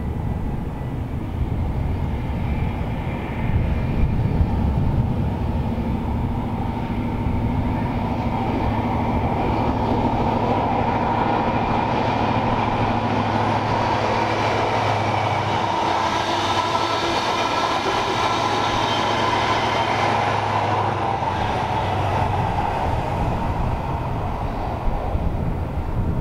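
HST test train with a Class 43 diesel power car passing at speed. The power car's engine hum builds, then the coaches rush by with wheels running on the rails, easing off near the end.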